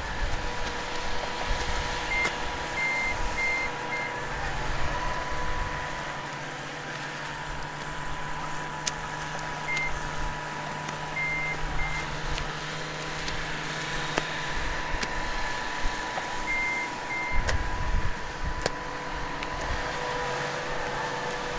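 Heavy farm machinery running steadily, with a low rumble and a constant hum. Short high beeps come in three groups, the first about two seconds in, like a reversing alarm on a machine backing up.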